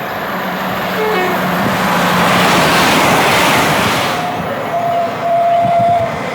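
Train passing at speed: a rush of wheel and air noise swells to a peak about three seconds in and then eases off. Near the end a thin, steady high tone sounds in short pieces.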